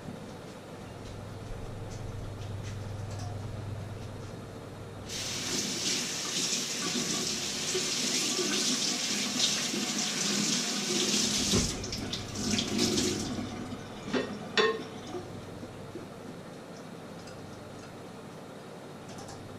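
Kitchen tap running into a sink for about six seconds, then turned off abruptly, followed by a few splashes and a couple of sharp knocks.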